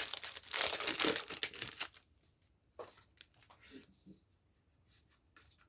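Foil booster pack wrapper torn open and crinkled for about two seconds, then a few faint, short rustles.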